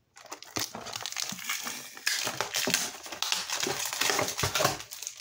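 Clear plastic blister packaging crackling and crinkling as it is handled, in a dense run of small irregular clicks and crackles.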